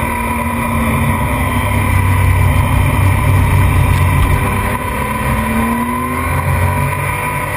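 Onboard sound of a racing motorcycle's engine running hard, with wind rushing over the mount-camera microphone, as the bike leans through a corner and drives out onto the straight. The engine note dips briefly about five seconds in, then climbs in pitch again as it accelerates.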